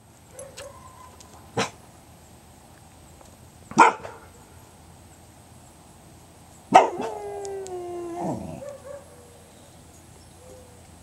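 Dog giving two single sharp barks, then a bark that runs straight into a howl of about a second and a half, held on one pitch and sagging slightly before it breaks off.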